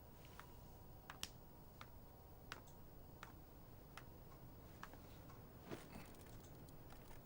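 Near silence: room tone with about a dozen faint, irregularly spaced clicks and ticks.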